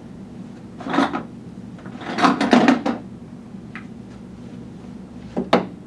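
Plastic pipe fittings and pipe pieces clattering as they are handled and set down on a tabletop: a rattle about a second in, a burst of several quick knocks around the middle, and two sharp clicks near the end.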